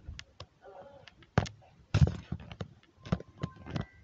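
Handling noise from an iPad being held and moved: a string of irregular taps, clicks and knocks, the loudest two thumps about a second and a half and two seconds in, with brief high squeaks near the end.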